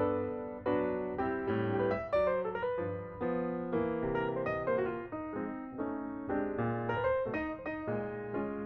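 Background piano music: a melody of struck notes, each left to ring and fade.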